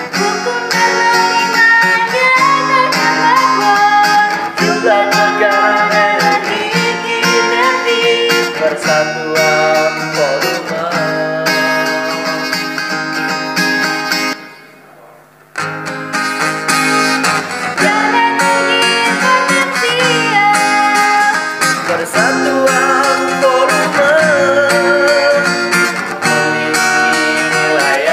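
Singing in Indonesian to an acoustic guitar: a song setting out Bernoulli's law. About halfway through, the music almost drops out for about a second, then starts again.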